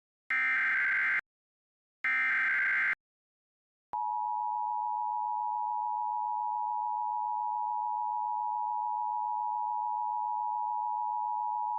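Emergency Alert System SAME header: two short, harsh digital data bursts, then the EAS two-tone attention signal (853 and 960 Hz sounded together) held steady for about eight seconds. It marks the start of an EAS activation for a tornado warning.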